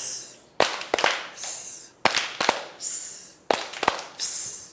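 A rhythmic clapping game: pairs of sharp hand claps, each pair followed by a short high hiss, the cycle repeating about three times.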